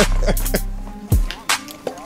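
Hip hop background music with a steady beat: a deep bass hit that fades away, and sharp drum strikes about twice a second over a held synth tone.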